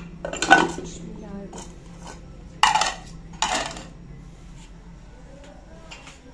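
Steel spoons and bowls clattering and clinking as they are handled and set down on a table. The loudest clatter comes about half a second in, then two more a little after two and a half and three and a half seconds.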